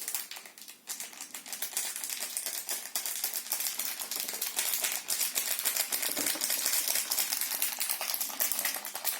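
Dry slime powder being poured out of its packet, a steady stream of many fine grains rattling and hissing into the container.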